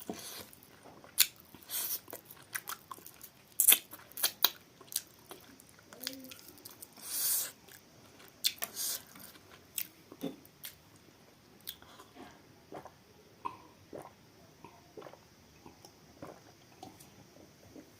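Close-up eating sounds of chicken being bitten and chewed: wet smacking and crunching with sharp clicks, denser in the first half and sparser towards the end.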